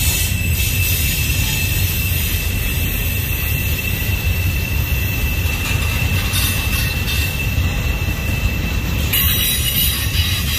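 Double-stack intermodal freight cars rolling past: a steady low rumble of steel wheels on rail, with a thin, steady high-pitched wheel squeal over it.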